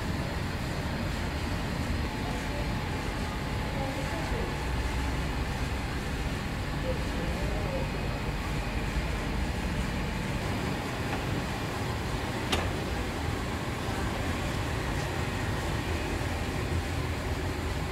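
Steady hum and rumble of bread-factory machinery, with faint voices in the background and a single sharp click about two-thirds of the way through.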